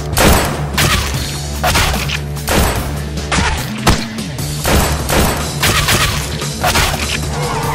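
Pistol gunshot sound effects, about a dozen sharp shots spaced roughly half a second to a second apart, over background music with a steady bass line.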